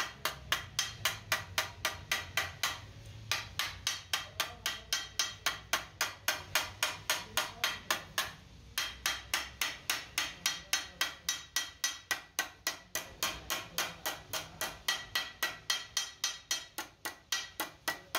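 Hammer striking a strip of sheet metal on the edge of a steel block, shaping it, at a quick steady rate of about four blows a second, each with a bright metallic ring. The blows pause briefly about three seconds in and again near nine seconds.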